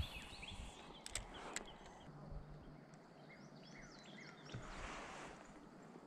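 Quiet river ambience with faint bird chirps. There are two light clicks between one and two seconds in, and near the end a soft swish of water as a kayak paddle dips in.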